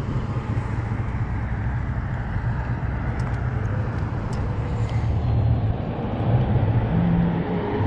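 Steady wind rumble on the microphone and tyre noise from a fat-tire e-bike rolling along the road, with a few faint clicks midway and a faint rising whine near the end.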